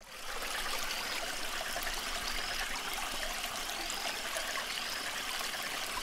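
Steady sound of running water, like a flowing stream, with faint short high chirps recurring every second or so.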